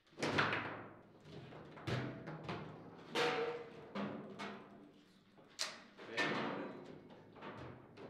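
Irregular booming knocks from a table football table, the ball and rods striking the wooden table body, each hit ringing on for a moment.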